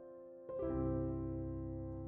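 Soft piano music: a held chord fades, then a new chord with a deep bass note is struck about half a second in and rings on.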